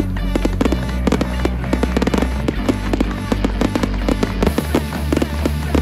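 Fireworks bursting and crackling in quick succession, mixed with music that has a beat and sustained bass notes.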